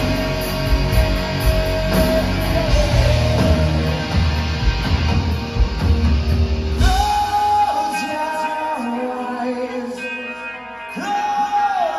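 Live hard-rock band, electric guitars, bass and drums under a long held note. About seven seconds in the drums and bass drop out, leaving a quieter, sparser passage of held notes.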